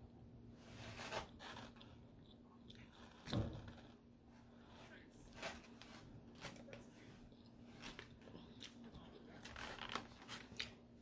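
Quiet eating: chewing and scattered small clicks and scrapes of a plastic fork cutting pancakes in a foam takeout container, with a louder knock about three seconds in. A faint steady hum lies underneath.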